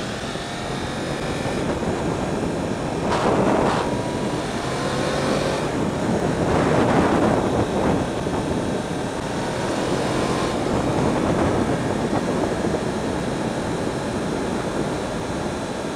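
Yamaha YZF-R1 sportbike's inline-four engine accelerating along the road, its note rising in pitch more than once, under heavy wind rush on the microphone. The wind noise swells louder about three seconds in and again around seven seconds.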